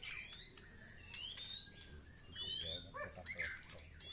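White-rumped shama (murai batu) singing: quick rising whistled notes mixed with sharp clicking notes, in a steady run of song.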